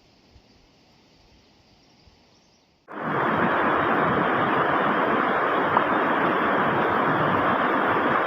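A few faint clicks against near quiet, then about three seconds in a steady rush of falling water from a small mountain waterfall starts suddenly and runs on loud and even.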